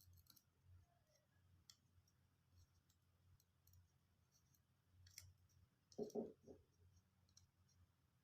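Near silence: faint scattered clicks of small tools being handled at a repair bench over a low hum, with one brief, louder low thump about six seconds in.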